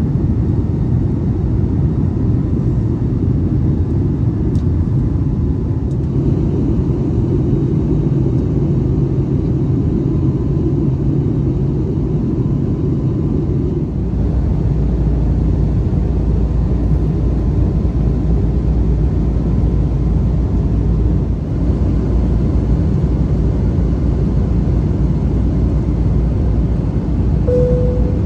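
Airbus A321neo cabin noise: a steady low rumble of jet engines and airflow. About halfway through, the rumble shifts and its deepest part grows stronger, and a short single tone sounds near the end.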